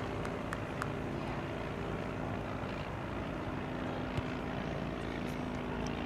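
A steady mechanical hum holding several even pitches over a low rumble, with a few faint ticks.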